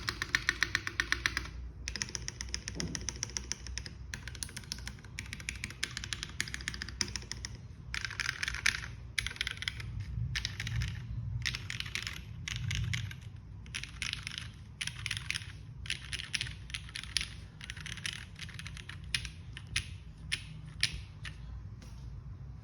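Typing on a Geonworks F1-8X mechanical keyboard with lubed MX Black Hyperglide linear switches on an aluminium leaf-spring plate, under GMK keycaps: rapid keystrokes in bursts with short pauses, the typing stopping about a second before the end.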